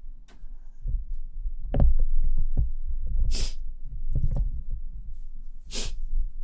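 Muffled low thuds and rubbing right on a close-up ASMR microphone, uneven rather than a steady beat, with two short hissing rustles, one about halfway through and one near the end.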